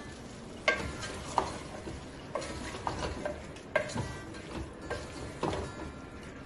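Wooden spatula stirring and scraping chicken pieces in a metal pressure cooker, knocking against the pot's side about once a second, over a faint sizzle of the food cooking.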